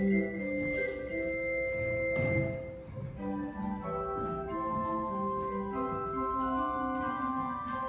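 Organ playing a slow piece in sustained chords, the held notes changing every second or so.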